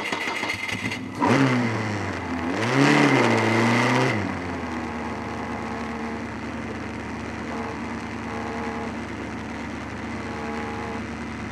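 Formula Ford race car engine heard onboard: two short blips of revs that rise and fall in the first few seconds, then a steady idle as the car creeps along at walking pace.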